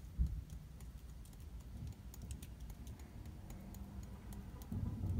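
Seasoning being shaken from a small spice shaker onto raw fish fillets: faint, irregular light ticks and rattles. There is a short soft thump just after the start.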